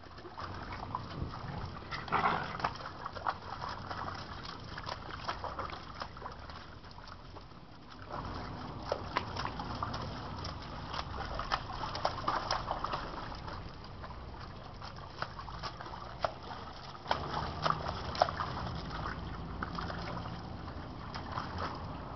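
Doberman puppies and a young Doberman playing around wet rocks, with scattered short splashing and sloshing of water and small dog sounds.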